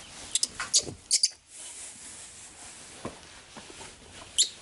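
Baby monkey giving short, high squeaks: several in quick succession in the first second or so, and one more near the end.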